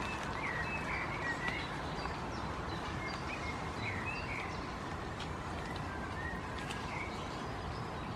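Small birds chirping in short, repeated calls over a steady outdoor background noise.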